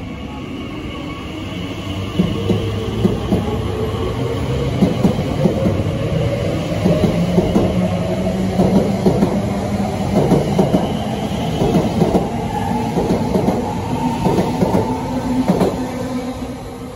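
A train passing along the track, with a steady running hum under rapid clacking of its wheels over the rail joints. The sound swells over the first couple of seconds and fades away near the end.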